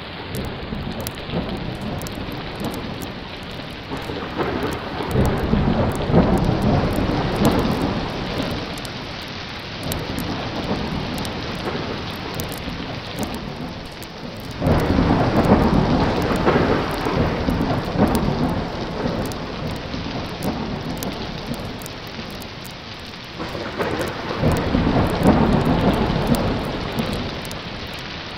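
Steady heavy rain with rolling thunder: three long rumbling swells, one about five seconds in, one starting suddenly about halfway, and one near the end.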